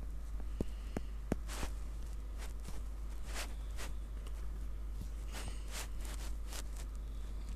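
Handling noise of a phone touchscreen being drawn on, picked up by the phone's own microphone: scattered sharp taps and short brushing swipes over a low steady hum.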